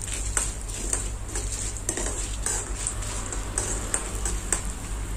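Steel spoon scraping and clinking irregularly against an iron kadai while stirring chana dal, urad dal and dried red chillies roasting in a little oil.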